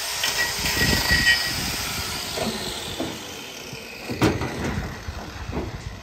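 Steady machine hiss from a hoof-trimming chute that fades away over the first few seconds, with metal clanks and knocks as a cow's hoof is handled in the chute; the loudest knock comes about four seconds in.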